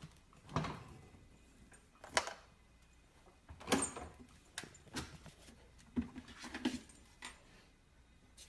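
Scattered knocks and rattles, about eight in all: a refrigerator door being opened and a husky puppy clambering onto the bottom shelf of the fridge.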